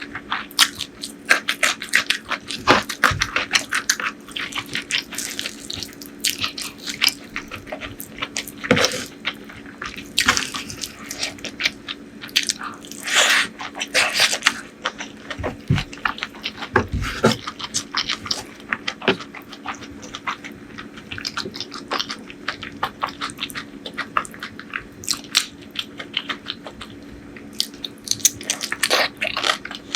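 Close-miked wet chewing and lip-smacking of a curry-and-rice meal: dense, irregular clicks and smacks throughout, over a faint steady hum.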